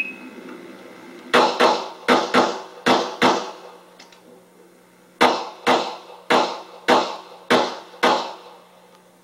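Glock 21 .45 ACP pistol fired in rapid strings during a practical-shooting stage, with a shot timer's start beep right at the start. There are two strings of six shots, roughly two to three shots a second, separated by a pause of about two seconds.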